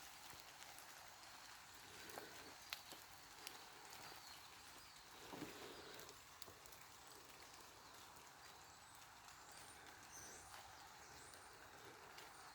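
Faint steady hiss of light rain falling through the trees, with scattered small ticks and a few faint bird chirps.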